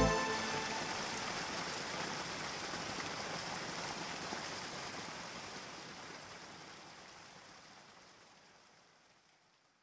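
Recorded rain, an even rushing hiss of falling rain, left on its own as the music cuts off and fading steadily away to silence over about nine seconds.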